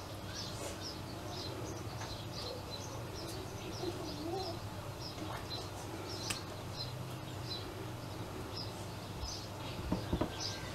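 A small bird chirping over and over in the background, short high chirps a few times a second, over a faint low steady hum.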